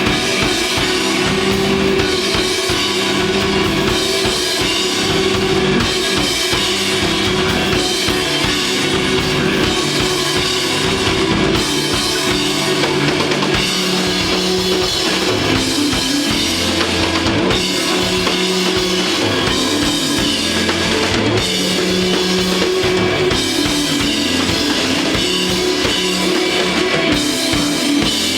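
Live rock band playing an instrumental desert rock piece: a loud drum kit with bass drum, over electric guitar and low, sustained bass notes that shift every second or two.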